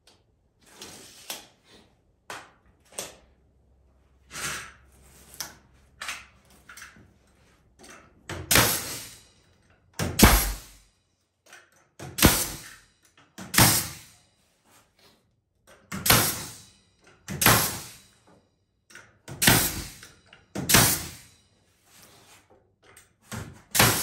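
Handheld power driver driving screws into the wooden sawbuck frame, in a string of short bursts with brief pauses between. The bursts are softer at first and grow louder and more regular, about one every second and a half.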